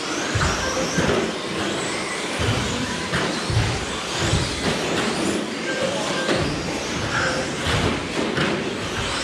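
Several 1/10-scale electric RC short course trucks racing on a carpet track, their motors whining up and down in pitch over a steady rushing noise, with frequent sharp knocks and clatters from hits on the track edging and each other.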